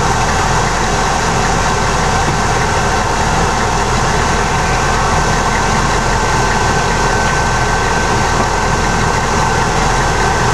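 Vehicle engine idling: a loud, steady rumble with a faint steady whine above it.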